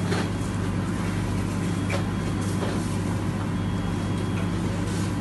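Steady low hum of commercial kitchen machinery, with a few light clicks and clatters from the food-prep station.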